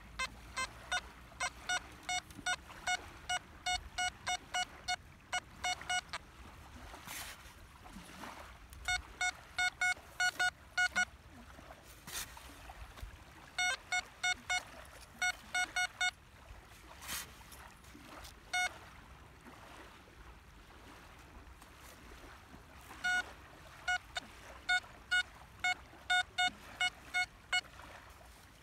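XP ORX metal detector with an elliptical HF coil giving repeated short, same-pitch beeps, about two to three a second, in runs with pauses between, as the coil is swept over a buried target in the sand. A few brief rushes of noise fall between the runs.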